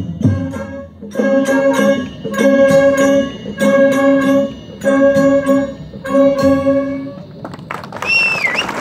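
Brass band playing a run of short held chords about a second apart, punctuated by drum hits, then falling away. Near the end a high whistle slides down and back up.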